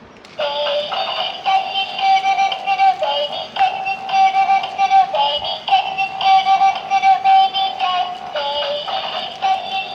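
Electronic synthesized tune with a high, singing-like voice, starting abruptly about half a second in and carrying on steadily with a held melody line that dips to lower notes every couple of seconds.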